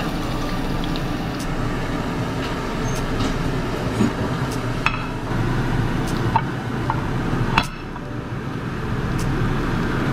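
Steady rushing kitchen background noise, with a few sharp clinks of metal utensils in the second half as a fork picks at fried fish.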